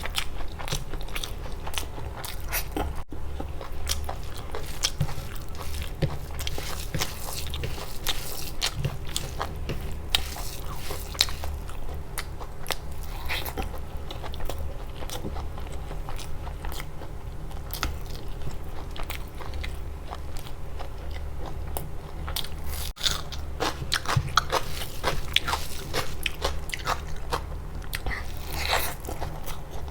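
Close-miked eating: crunchy bites and chewing with many sharp crackles, over a faint steady low hum.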